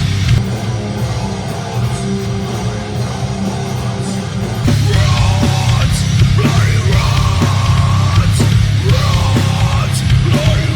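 Heavy metal music with distorted guitar over a heavy, dense low end, getting louder about halfway through.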